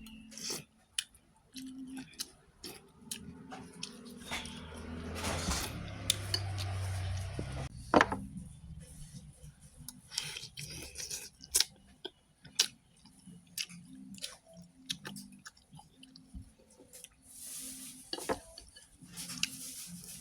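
Eating a bowl of noodle soup: spoon and chopsticks clink against the bowl again and again, with chewing. A louder, noisier stretch comes a few seconds in.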